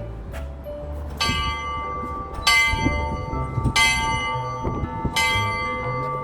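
A bell struck four times, about once every 1.3 seconds, each strike ringing on into the next.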